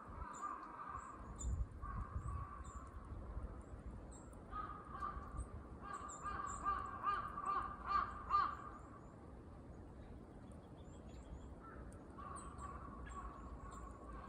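Crows cawing in a run of repeated calls, loudest from about four and a half to eight and a half seconds in, with faint high chirps throughout.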